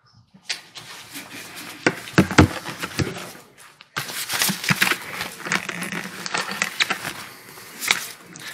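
Knocks, taps and paper rustling as a book and papers are handled at a wooden pulpit, with louder rustling starting suddenly about four seconds in.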